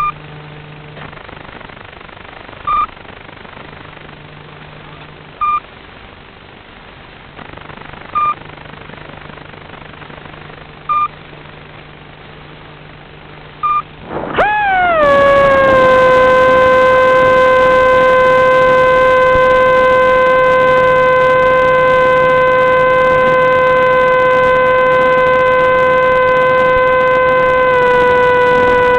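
Short single beeps about every three seconds over a low hum. About halfway through, a loud whine from a small electric motor sweeps up, settles and holds a steady pitch, dropping slightly near the end.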